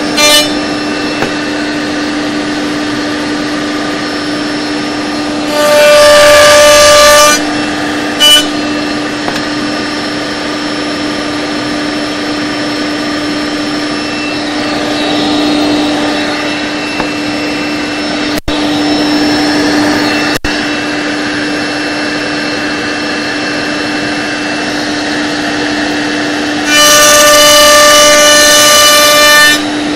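Router running steadily in a router table, cutting hinge fingers in cherry blanks held in a sliding jig; the bit gives a loud high-pitched scream while it is in the wood, once about six seconds in for a second and a half, briefly again a couple of seconds later, and again near the end for about three seconds.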